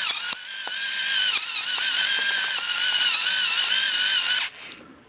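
FinaMill battery-operated pepper mill's motor running with a high, slightly wavering whine as it grinds peppercorns at its finest setting, dipping briefly just after the start and stopping about four and a half seconds in.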